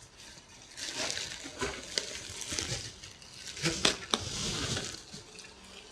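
Cardboard box and its packing being handled: rustling and crinkling with a few sharp clicks and knocks.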